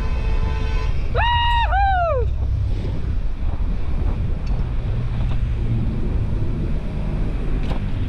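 Wind rumbling on the microphone of a rider's camera on a moving bicycle. About a second in there is a short, high two-note tone, and the second note slides down.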